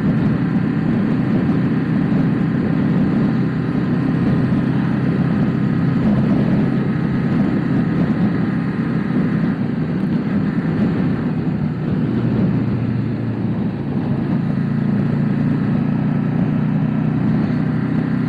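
Motorcycle engine running steadily while riding, heard from the rider's own bike.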